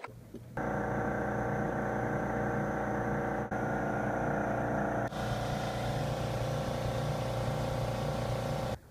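Honda Odyssey's 3.5-litre V6 engine running steadily. It starts abruptly about half a second in and cuts off just before the end, with two small breaks where the sound shifts slightly.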